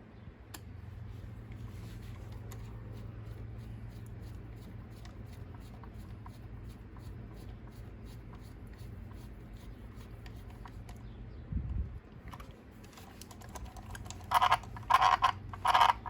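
Light clicks and scratches of small hand tools and plastic parts as the rear hub and wheel go back on an RC truck, with one louder knock about three-quarters of the way in, over a steady low hum.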